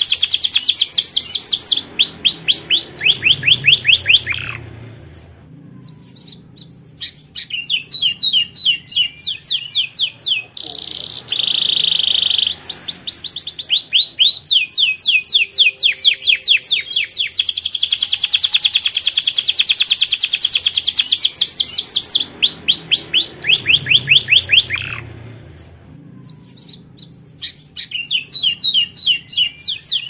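Yellow domestic canary singing long song phrases of fast, rapidly repeated trilled notes, with a steady held whistle-like note partway through. The song breaks off twice for a second or two.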